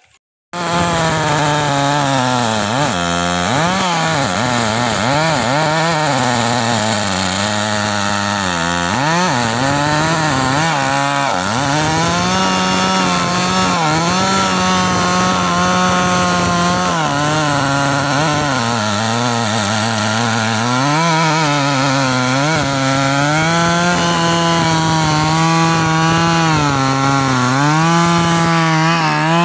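Stihl MS 381 two-stroke chainsaw cutting through hard trembesi (rain tree) wood, starting suddenly about half a second in. Its revs repeatedly sag and recover as the chain bogs in the dense wood, with steadier stretches at high revs between.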